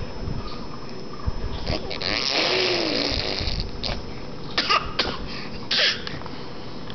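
A baby blowing spit bubbles, raspberries through the lips. There is one long sputtering blow with a little voice in it from about two to three and a half seconds in, then three short sputters.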